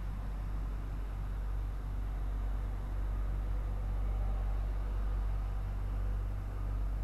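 Steady low rumble of idling diesel semi trucks in a parking lot, with no other sound standing out.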